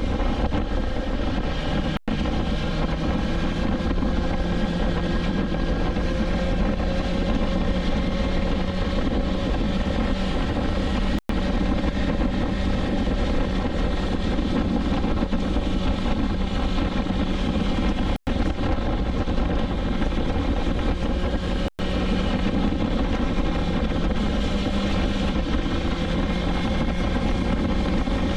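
BMW S1000XR inline-four engine running at a steady cruise under road and wind noise. The sound cuts out for an instant four times.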